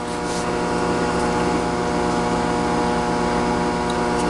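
Microwave oven running with a steady hum and fan noise while it heats a bar of soap that is puffing up.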